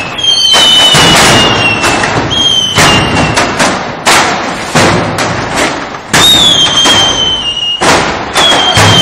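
Mascletà firecrackers going off in a rapid, uneven barrage of loud bangs, with several whistling fireworks sliding down in pitch over them. The barrage thins briefly about six seconds in, then picks up again.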